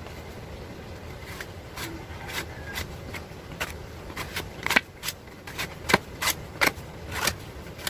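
Putty knife scraping and tapping through a small batch of two-part body filler mixed with hardener. It makes a string of short, sharp scrapes and clicks that become louder and more frequent about halfway through.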